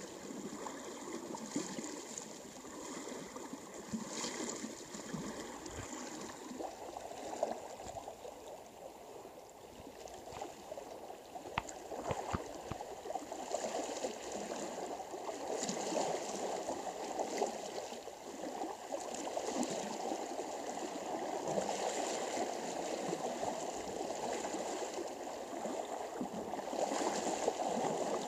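River water swishing and sloshing around the legs of people wading waist-deep across a river, a continuous rushing with recurring surges that grows louder about halfway through.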